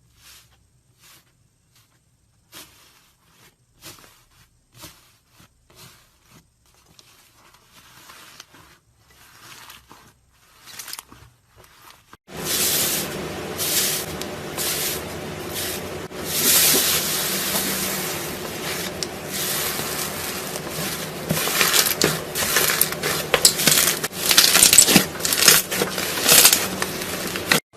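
Slime being handled: sparse, quiet sticky clicks and squelches at first, then about twelve seconds in, a sudden change to louder, dense crackling and squishing over a faint steady hum.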